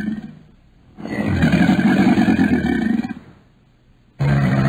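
An animal calling loudly: one long call of about two seconds, then a second call starting near the end.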